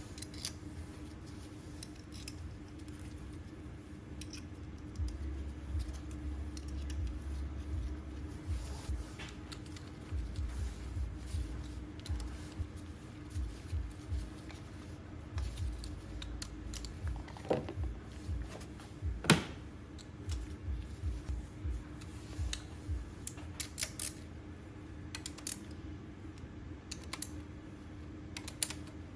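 Hand tools and engine parts being handled: irregular light clicks and knocks, one sharper click about two-thirds of the way through, over a steady low hum.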